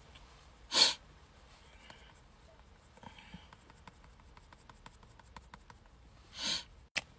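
Two short sniffs through the nose, about six seconds apart, with faint light ticks in between.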